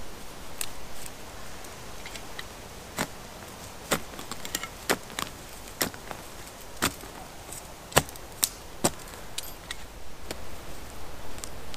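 A small hand digging tool chopping into dry woodland soil and roots to dig a fire pit. There are about a dozen sharp, irregular strikes, roughly one every half second to a second.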